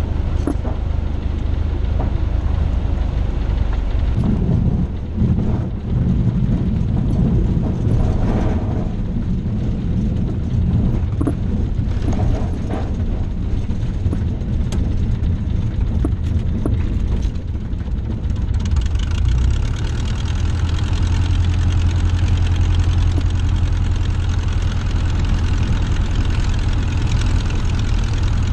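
Small Cessna's single piston engine running at low power, heard from inside the cabin, as the plane rolls over a grass strip with scattered knocks and rattles. About two-thirds of the way through, the engine note steadies and sounds brighter.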